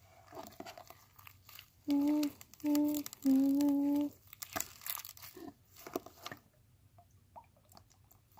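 A person hums three short notes, about two to four seconds in. Around them come scattered small squishing and crackling clicks of stiff slime being kneaded by hand.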